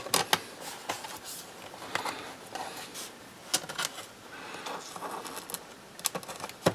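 Scattered small metallic clicks and scrapes of tiny Phillips screws being set into a MacBook Pro's bottom cover and started with a screwdriver.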